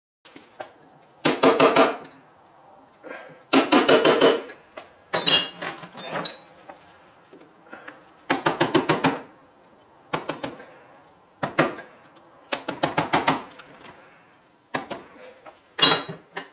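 Bursts of rapid hammer blows on metal, about eight clusters of quick strikes, one with a ringing metallic tone, as copper windings are driven out of an electric motor's steel stator core.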